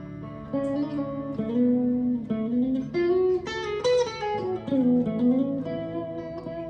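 A 1999 Fender '62 American Vintage Reissue Stratocaster with a Warmoth neck and Fender Custom Shop Ancho Poblano single-coil pickups, played through an amplifier. He picks a melodic lead line with several string bends that slide up and back down in pitch, letting the notes ring into each other.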